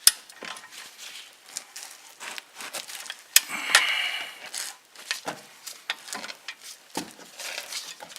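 Scattered clicks and knocks of a hand wrench being worked on brake caliper bolts, with a louder metallic clink that rings briefly about three and a half seconds in.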